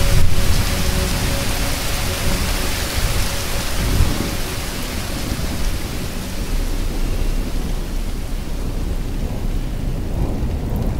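Steady rain with a deep rumble of thunder that is loudest at the start and slowly dies away.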